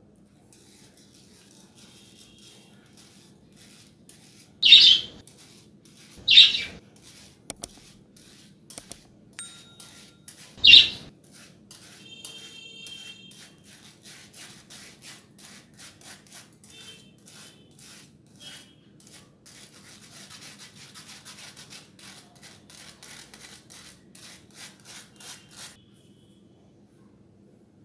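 Wire whisk scraping and tapping against a stainless-steel mesh sieve as custard is pressed through it, with repeated small clicks and brief metallic ringing. Three louder clinks of metal on metal come about 5, 6.5 and 11 seconds in, and the scraping stops shortly before the end, over a steady low hum.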